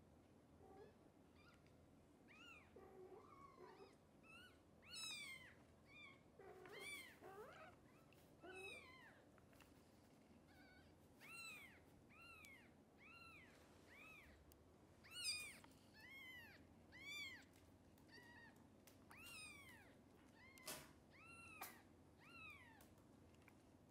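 Newborn kittens mewing: thin, high-pitched cries that rise and fall, repeated about once a second, with a few lower calls early on. There are two sharp clicks near the end.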